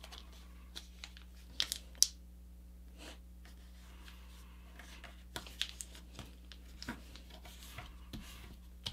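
Paper being folded and creased by hand: soft rustles and a few short crackles as fingers press and run along the folds, over a faint steady low hum.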